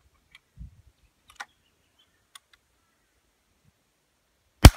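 A few light metallic clicks as a CBC Model 151 single-shot break-action rifle in .32-20 is handled and closed, then a single sharp shot near the end, fired with a very light cast-bullet load, with a short echo trailing off.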